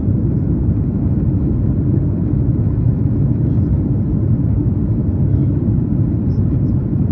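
Steady low rumble of a Boeing 737 MAX 8 airliner in flight, heard inside the passenger cabin during the descent to land.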